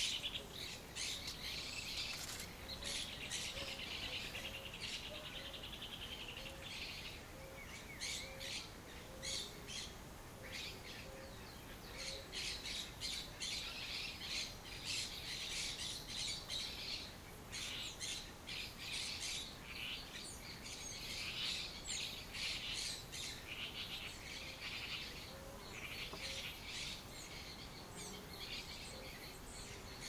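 A mix of wild birds chirping and calling, with many short high calls overlapping throughout and a fast high trill in the first few seconds. A faint low note repeats steadily under them for about the first dozen seconds.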